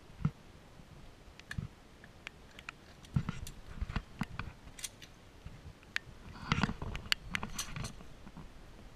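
Scattered clicks, knocks and rustling of hands working in a shallow, muddy creek as something is pulled up out of the mud. The knocks and rustling bunch up about six and a half seconds in.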